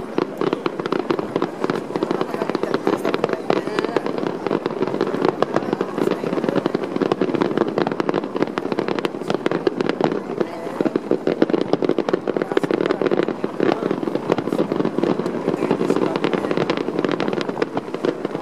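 Fireworks display: a dense, unbroken run of pops and crackles from shells bursting one after another.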